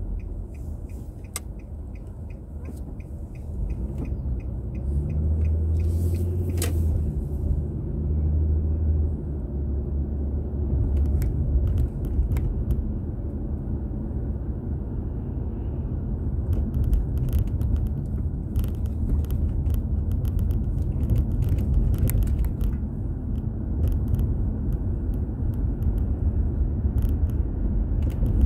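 Low, steady road and engine rumble of a car driving, picked up by a dashboard recorder inside the cabin. A run of small, evenly spaced ticks stops about a second in, and scattered clicks and rattles come through later.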